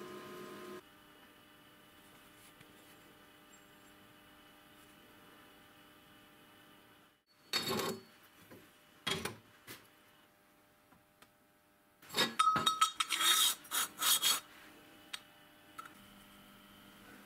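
Steel workpieces being handled on a steel workbench: a few separate metallic clanks, then a quick clattering run of clinks and scrapes over about two seconds.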